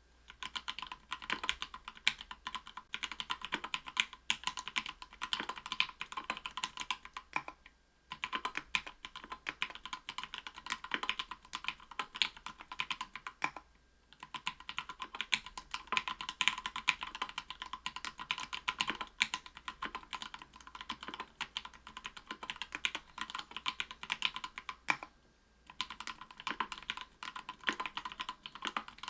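Typing on a mechanical keyboard with SP-Star Polaris Gray 67g linear switches lubed with Krytox 205g0, in an aluminium plate with Cherry PBT keycaps: a quick, continuous patter of keystrokes. It breaks off briefly three times, about 8, 14 and 25 seconds in.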